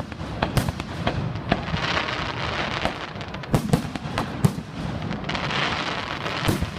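Fireworks going off: a run of sharp bangs from exploding shells, with stretches of dense crackling about two seconds in and again past the middle.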